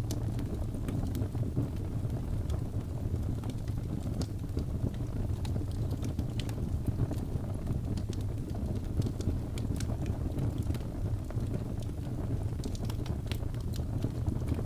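Wood fire burning: a low steady rumble with scattered sharp crackles and pops from the burning wood.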